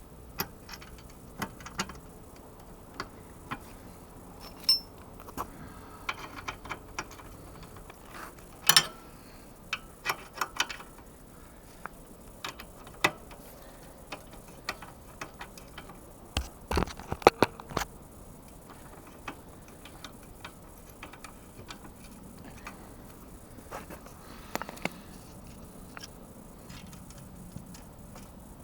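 Irregular metallic clicks, clinks and knocks of spanners and parts being worked on a Yamaha YBR125's swingarm pivot bolt, with the loudest knocks about nine seconds in and a quick cluster around seventeen seconds.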